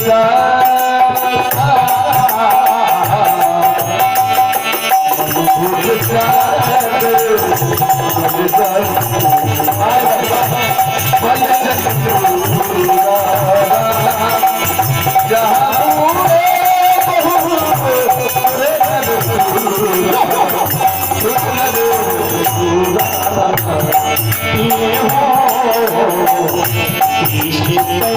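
Indian devotional music: a melody winds over a steadily held note, with a fast, even rattling percussion rhythm running underneath.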